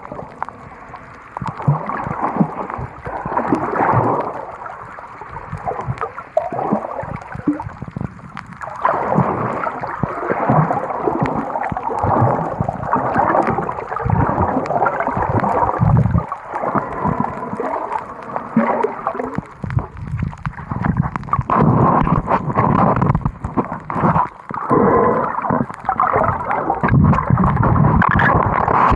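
Muffled rush and swish of water around an Insta360 GO 3 action camera held underwater, rising and falling irregularly and dull, with little above the low-middle range.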